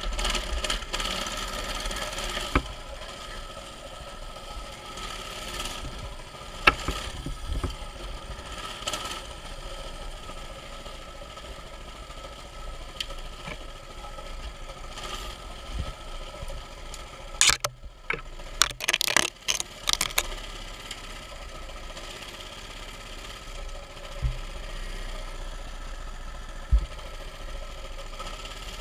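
Mini bike's small engine running steadily while being ridden, with sharp knocks and rattles from the bike jolting over rough ground, a burst of them a little past the middle.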